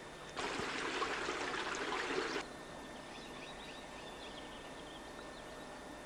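Rushing, splashing water for about two seconds, starting and stopping abruptly, then a faint steady outdoor background.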